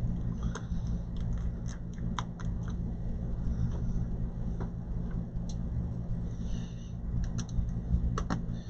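Small scattered clicks and ticks of a T5 Torx screwdriver and tiny screws on a laptop battery being unscrewed, over a steady low background hum.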